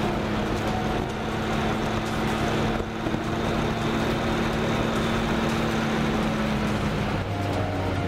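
Motorcycle riding at a steady cruise, with a continuous rush of engine and wind noise, under background music of long held notes that shift to lower ones about seven seconds in.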